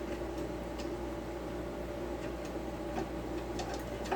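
A few faint, light clicks and taps of the metal rip guide being handled against a circular saw's base plate, over a steady low hum.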